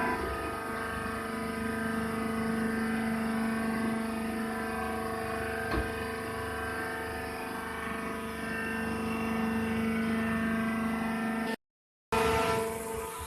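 Wood shavings baling machine running with a steady mechanical hum that holds several constant tones, and a single click about six seconds in. Near the end the sound cuts out for half a second and comes back.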